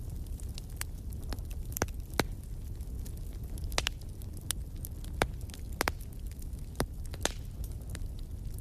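Wood fire in a fireplace crackling: irregular sharp pops and snaps, about eight clear ones, over a steady low rumble of the burning fire.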